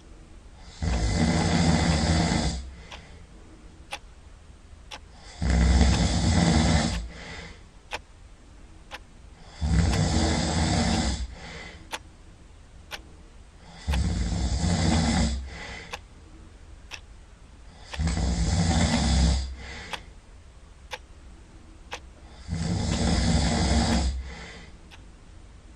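Loud snoring from a sleeper: six long, rasping snores, each about one and a half to two seconds, coming roughly every four seconds in a steady rhythm.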